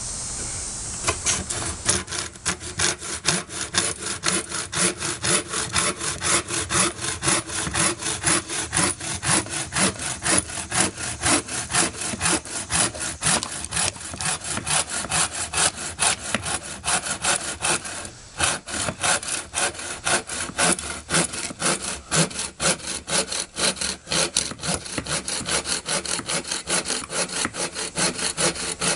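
Bow saw cutting into a resin-soaked fatwood stump in quick, steady back-and-forth strokes. The strokes start about a second in and break off briefly once partway through.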